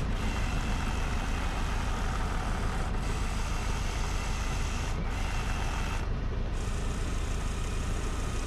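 VW New Beetle engine idling steadily, with the electric door mirror's adjusting motor running in short spells and stopping briefly a few times as it is moved about to free it off. The motor had been running a bit slow, which the owner suspects is from water getting in, and has just been sprayed with WD-40.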